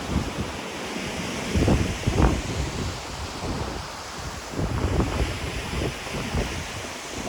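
Ocean surf washing on the shore, with wind gusting against the microphone in low rumbling buffets, strongest about two seconds in and again around five seconds.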